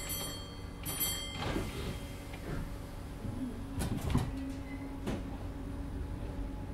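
Inside a stationary British Rail Class 507 electric multiple unit: two short electronic beeps of the door-closing warning about a second apart, then the sliding passenger doors closing with a few knocks about four and five seconds in, over the unit's steady hum.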